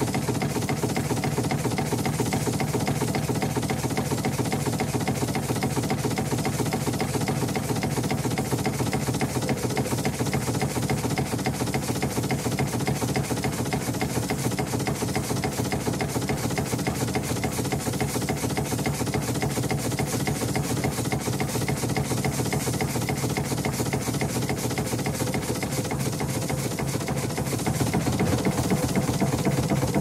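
Steam launch's steam engine running steadily with a fast, even mechanical beat. Near the end it grows a little louder and its tone shifts.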